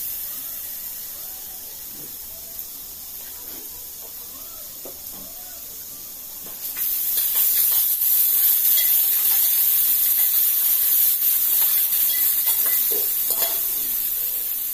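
Chopped greens and spice paste frying in hot oil in an aluminium pot, stirred with a spoon. The sizzle jumps suddenly much louder about seven seconds in, then slowly dies down.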